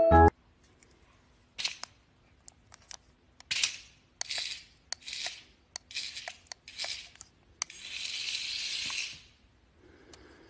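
A cat hissing at a toy snake: a string of short hisses with sharp clicks between them, then one longer, louder hiss about eight seconds in.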